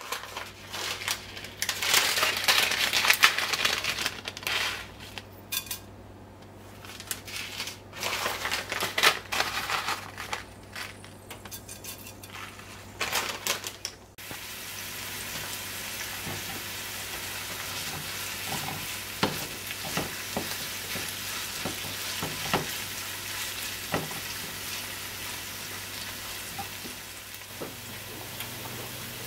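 Hot oil in an aluminium pot sizzling: first in loud, irregular crackling bursts with short gaps, with fenugreek and cumin seeds in the oil, then, from about halfway, a steady even sizzle of diced onion, pimento and curry leaves frying. Occasional sharp taps and scrapes of a silicone spatula stirring the pot.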